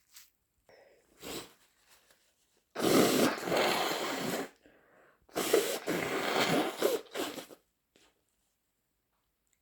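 Two long, loud nasal blasts from a person with a runny, snotty nose, each lasting about two seconds, the second with several surges, after a few faint sniffs.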